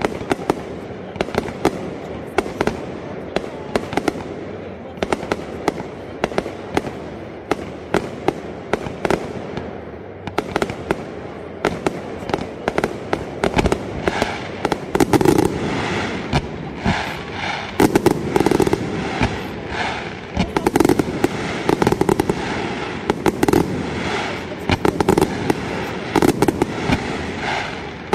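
Aerial fireworks display: a constant run of shell bursts and sharp bangs. About halfway through it thickens into rapid crackling with heavier booms every couple of seconds as the barrage builds.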